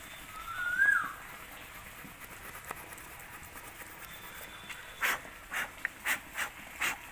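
A bird's short call, rising then falling, about a second in. From about five seconds, the Victorinox Huntsman's small wood saw cutting hard jamun wood in short strokes, about three a second.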